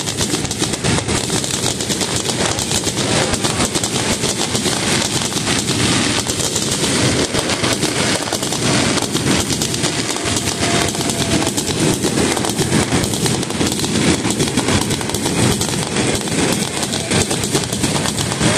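Fireworks going off in a dense, unbroken barrage of rapid crackling pops and bangs.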